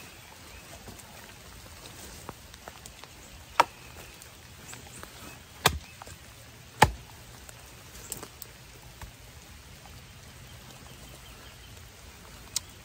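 Axe blade chopping into a sapling's trunk: three sharp chops a second or two apart a few seconds in, then a lighter knock near the end. Steady rain in the background.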